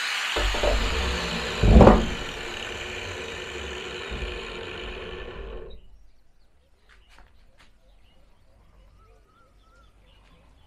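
Corded angle grinder running free off the steel pipe, a steady whine that gradually thins, with a loud clunk about two seconds in. The whine stops abruptly about six seconds in, leaving only faint clicks and handling noises.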